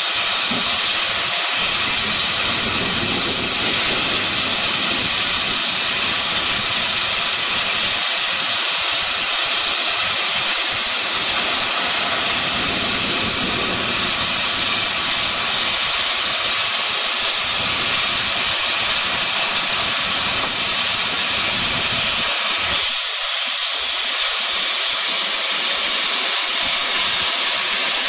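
Small 0-4-0T tank steam locomotive blowing off steam: a loud, steady hiss that holds at one level throughout.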